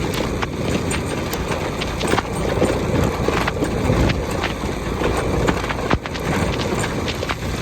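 Motorbike riding in heavy rain: a steady low rumble of wind and running engine, with frequent irregular sharp taps of raindrops hitting the microphone.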